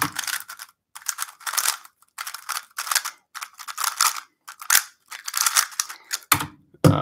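Plastic 3x3 speed cube turned very fast in a timed speedsolve: rapid clicking and clacking of the layers in quick flurries with short pauses between them.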